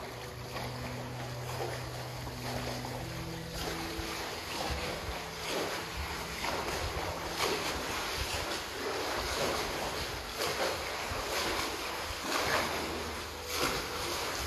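Kayak paddle strokes in calm water: a steady splashing wash from blade and hull that swells with each stroke, every second or two.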